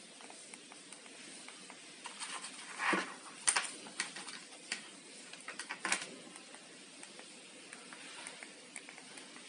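Handling noise from a fabric vest and its small plastic remote on a table: a few sharp clicks, loudest about three and a half and six seconds in, and a brief rustle just before three seconds, over a steady low hiss.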